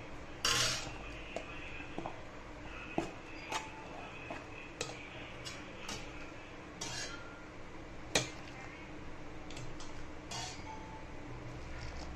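Steel dosa spatula scraping and clinking against a non-stick pan as rice flour is stirred with hot water, in irregular strokes with a few louder scrapes and sharp clinks.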